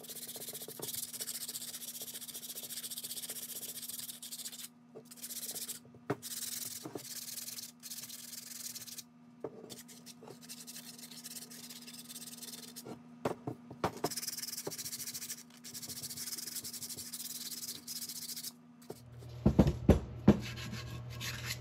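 Coarse 60-grit sandpaper rubbed by hand over a rusty steel receiver-hitch ball mount: a continuous scratchy hiss broken by short pauses, played at double speed. A few louder knocks near the end, the steel hitch bumping the wooden workbench.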